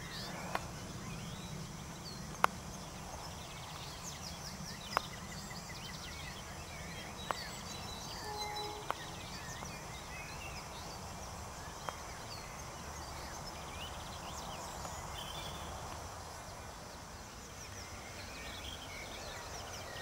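Songbirds chirping and singing in the background over a steady low rumble, with five sharp clicks in the first twelve seconds, the loudest about two seconds in.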